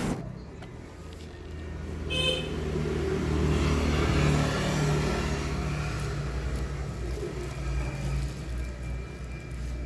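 Road traffic: a steady engine and road rumble, with a short vehicle horn toot about two seconds in.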